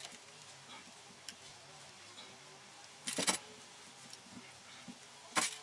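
Two short scraping, rustling noises of a knife working through a rubber hand expander, a little after three seconds in and again near the end, with a faint click before them.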